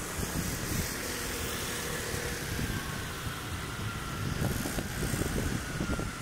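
A motor vehicle passing, with a faint whine that slowly falls in pitch over several seconds. Wind buffets the microphone, strongest in the second half.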